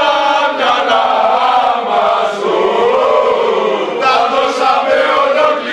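A crowd of men singing a football supporters' chant together, loud and unbroken.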